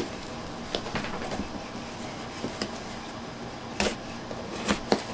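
Cardboard shipping box being cut and worked open with a folding knife: scattered scrapes, taps and clicks against the box, with a sharper knock near the end.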